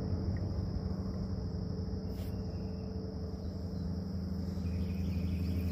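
Insects, crickets, chirring in one continuous high-pitched drone, over a steady low rumble.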